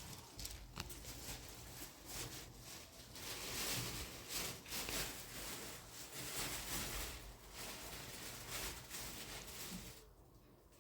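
Irregular rustling and handling noise, swelling and fading every second or so, with a few faint clicks.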